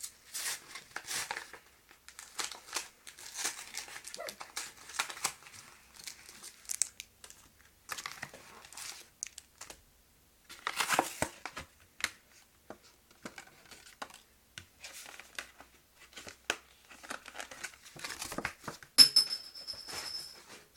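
Packaging of a Pokémon card bundle being crinkled and torn open by hand, in irregular crackling bursts. One louder crackle comes about halfway through, and a short high squeak near the end.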